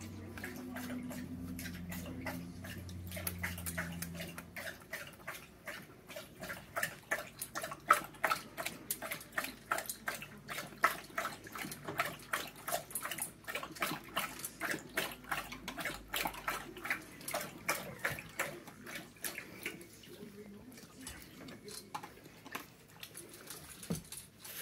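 Black Labrador eating from a raised plastic bowl, with rapid, regular crunching and clatter of food against the bowl at about three or four mouthfuls a second.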